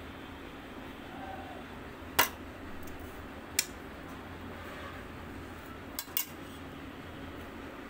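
A metal spoon clinking against a steel plate: four sharp clinks, the loudest about two seconds in, another a second and a half later, and two close together near the end.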